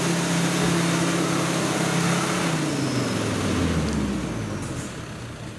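Modified Toyota Land Cruiser's engine held at steady high revs, then the revs fall away from about two and a half seconds in, the note sliding down low and getting quieter near the end.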